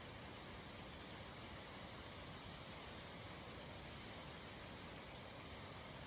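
Steady hiss of rushing water from a waterfall, even and unbroken, with its strongest part high and hissy.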